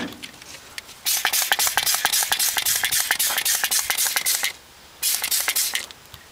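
Hand trigger spray bottle pumped rapidly, spraying degreaser onto a rangehood's panels: a fast run of hissing squirts lasting about three and a half seconds, a short pause, then a briefer run.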